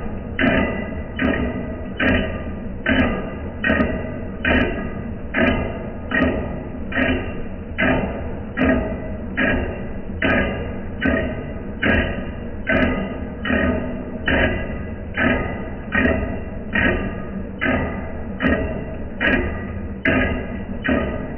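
Lathe running with a regular knock and metallic ring that repeats a little faster than once a second.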